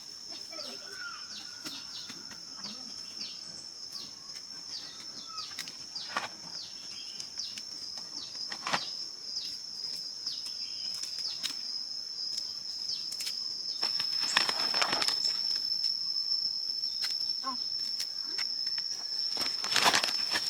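A steady, high-pitched insect drone, with a rapid run of short falling chirps over the first half and a few brief rustling noises around the middle and near the end.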